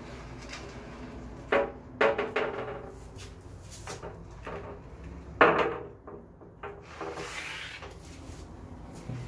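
A frosted glass shower door being handled and moved, with rubbing and a few sharp knocks that ring briefly: two close together about one and a half to two seconds in, and the loudest about five and a half seconds in.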